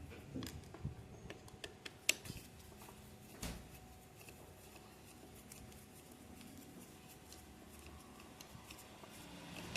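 Scattered light clicks and taps of a screwdriver, screws and the plastic rear grille of a desk fan being handled as the grille's four screws are taken out. The sounds are mostly in the first three or four seconds, with a sharper click about two seconds in, then only a faint steady background.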